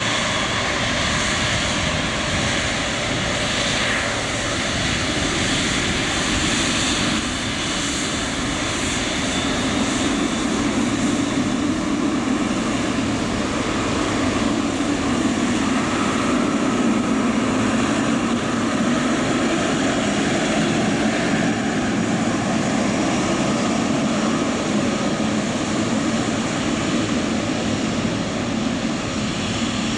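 Boeing 777 freighter's GE90 turbofan engines at taxi power: a steady jet rumble with a high whine, growing slightly louder about a third of the way in.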